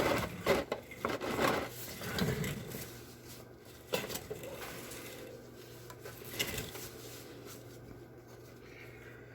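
Light metallic clinks and knocks of an oil drain plug and hand tools being handled under a truck: a cluster in the first couple of seconds, then single sharp clicks about four and six and a half seconds in, over a faint steady hum.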